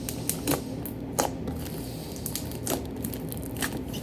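Clear glue slime being squeezed and stretched by hand, making irregular squelches and sharp pops as trapped air bubbles burst.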